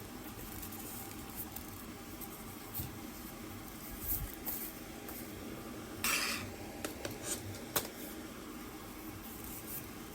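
Handling noise: scattered light clicks and knocks, a low thump about four seconds in, a short scraping rustle about six seconds in and a sharp click near eight seconds, over a steady background hiss.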